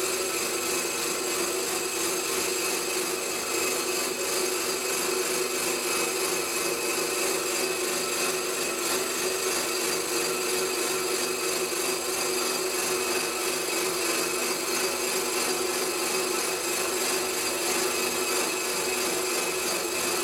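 Wabeco D6000 bench lathe running at constant speed while taking a facing cut across a 250 mm faceplate: a steady machine whine with the noise of the cut, unchanging throughout.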